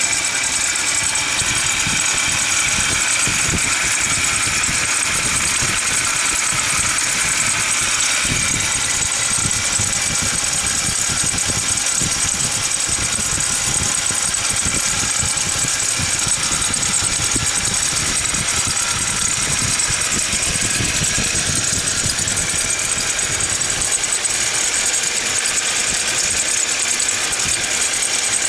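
Engine running with an abnormal noise from the fan-belt drive: a steady high-pitched whine over a fast rattle, caused by a faulty pulley.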